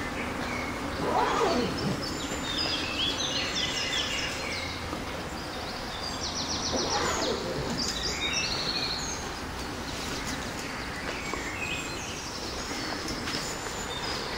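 Small birds chirping and twittering in groups of quick high notes, over a steady background hiss.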